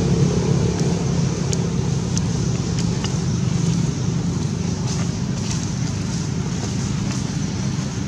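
Steady low engine rumble with a few faint clicks.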